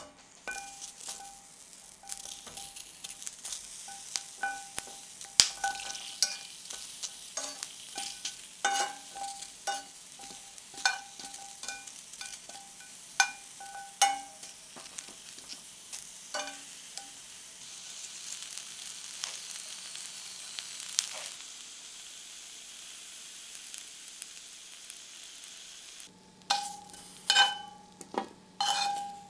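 Red bell pepper pieces sizzling in a hot steel frying pan, while metal tongs turning them clink against the pan, each clink ringing briefly. The clinks come thick and irregular in the first half, then give way to steady sizzling alone, and start again near the end.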